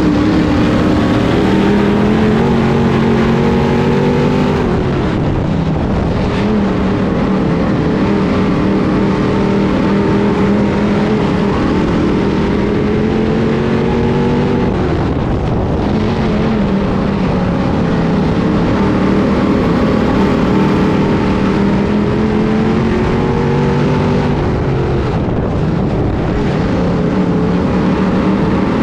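Onboard sound of a 602 Sportsman dirt modified's GM 602 crate V8 at racing speed. Its pitch climbs steadily, then drops sharply as the driver lifts, three times over.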